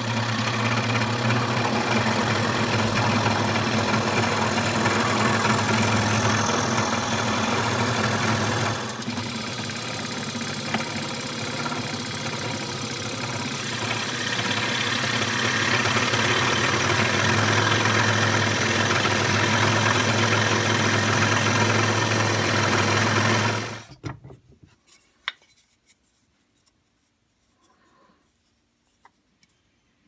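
Makita scroll saw running steadily, its reciprocating blade cutting through wood. It gets a little quieter for a few seconds about a third of the way in, then shuts off suddenly near the end, leaving only a few faint clicks.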